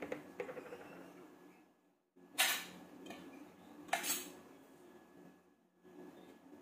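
Dishes and cutlery being handled: a knife and plate clinking and scraping on a kitchen counter, with two louder clatters about two and a half and four seconds in.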